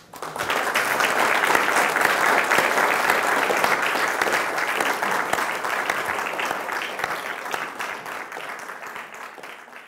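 Audience applauding: many hands clapping, swelling up at once and slowly dying away.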